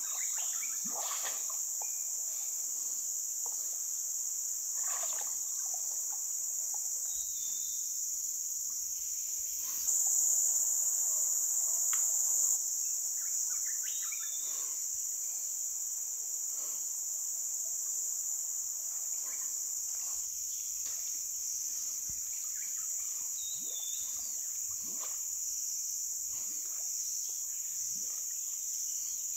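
Steady high-pitched chorus of insects, which swells louder for a couple of seconds in the middle, with scattered faint splashes and knocks underneath.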